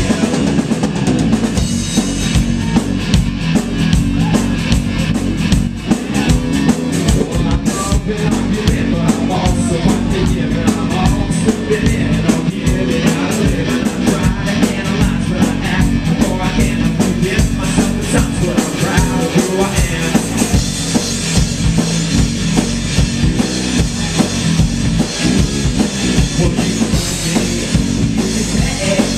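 A rock band playing live, loud and steady, with a drum kit beating time over bass and electric guitar, and a singing voice heard at times.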